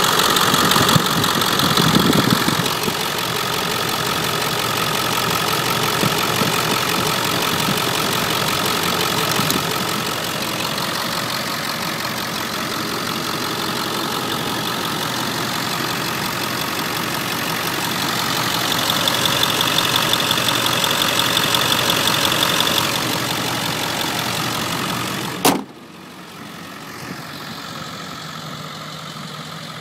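Ford 7.3L Powerstroke V8 turbo diesel idling steadily, heard close up in the open engine bay. About 25 seconds in, a single sharp bang as the hood is shut, after which the idle carries on quieter and muffled.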